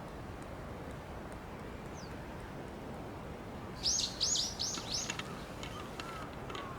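A wild bird singing a quick run of five high, arched notes about four seconds in, followed by a few fainter, lower calls, over a steady low rush of wind.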